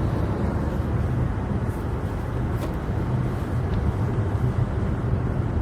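Steady low rumble of a car being driven on the road, with a few faint ticks.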